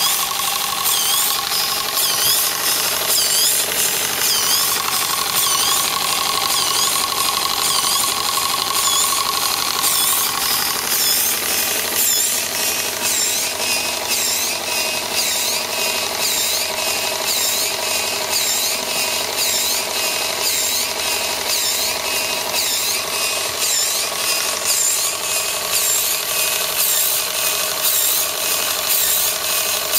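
Small model steam engine and its steam-driven water pump running, a rapid, even mechanical clatter with steam hiss.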